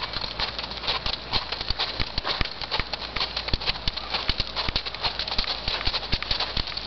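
Quarter Horse gelding walking under saddle on arena dirt: a steady run of hoofbeats in the horse's four-beat walk, several light knocks a second.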